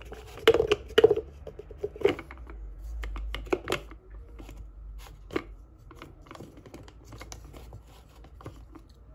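Plastic blade unit and collar of a blender's chopper attachment being fitted onto its glass jar: a series of sharp clicks and scrapes, loudest in the first couple of seconds, then fainter ticks of handling.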